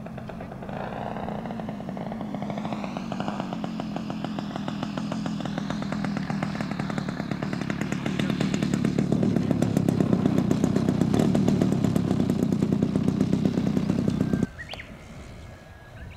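Radio-controlled model airplane engine running with a rapid, even beat, growing louder as the plane passes low, then cutting off suddenly near the end.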